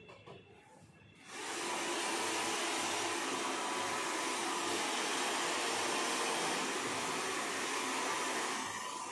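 Handheld hair dryer switched on about a second in, blowing a steady rush of air with a faint motor whine; it gets a little quieter near the end.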